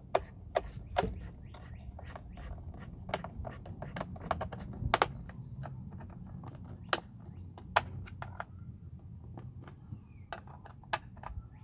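Irregular sharp clicks and knocks from the plastic case of a 36-volt Black & Decker lawnmower battery pack as it is worked at the seam with a screwdriver and pressed together by hand, over a low steady rumble.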